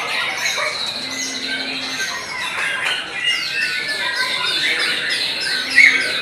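White-rumped shamas (murai batu) singing over one another: a dense mix of varied whistles, glides and fast chattering runs of short notes, with one louder note near the end.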